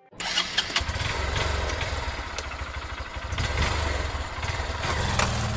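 Motorcycle engine running steadily, with a low pulsing throb.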